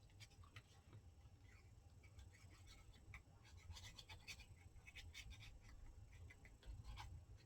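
Near silence, with faint scattered light clicks and scratches of small hand movements with paper and craft materials.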